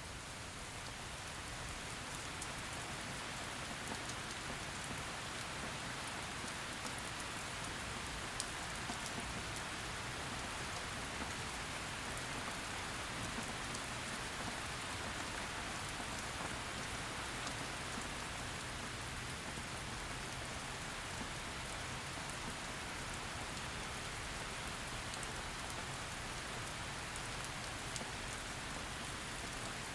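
Steady heavy rain falling on a surface, an even hiss with scattered individual drop ticks.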